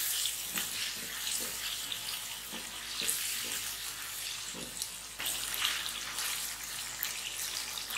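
Chicken in a thin green gravy sizzling and bubbling in a nonstick wok, a steady hiss, while a wooden spoon stirs it and knocks and scrapes faintly against the pan now and then.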